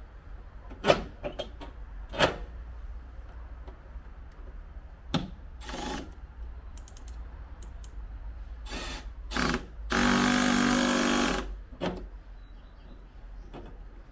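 A few sharp knocks and clicks of metal parts being handled, then a cordless drill-driver gives two short blips and runs steadily for about a second and a half near the end, driving in a screw.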